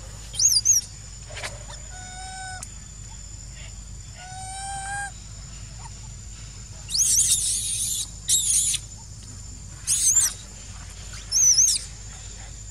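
Baby long-tailed macaque squealing: about five short bouts of high, wavering squeals, the longest about seven seconds in. Two lower, drawn-out calls come between them, early on and near the middle.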